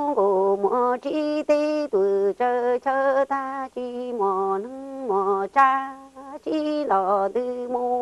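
A woman chanting unaccompanied in Hmong, in the manner of sung poetry. Her voice steps between a few held, level notes in short phrases, with brief breaths between them.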